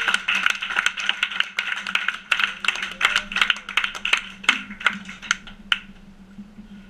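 Scattered clapping from a small audience after a song ends: irregular sharp claps that thin out and stop about six seconds in. A steady low hum from the band's amplifiers runs underneath.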